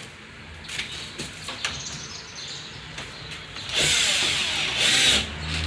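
Power drill/driver running in two short bursts while driving screws into the door handle hardware, with small clicks of the hardware being handled before them.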